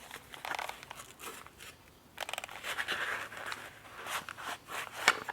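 Close handling sounds: rustling and crinkling with scattered small clicks, a quick rattle of clicks about two seconds in and a sharper click near the end.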